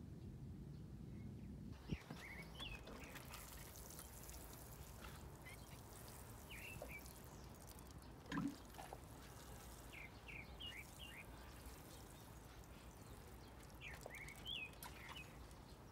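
Faint outdoor ambience with small birds chirping in short groups of quick calls several times through. A sharp click about two seconds in and a low thud a little past the middle.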